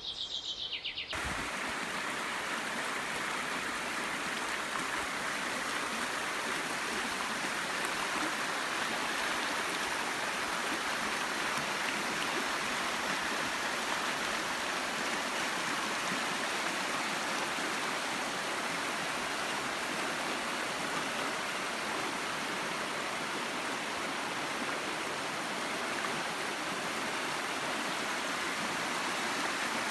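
River water rushing over rocks in shallow rapids: a steady, even rush that sets in about a second in.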